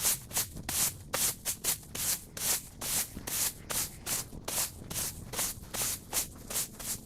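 A rake scraping through cut grass in quick repeated strokes, about three a second.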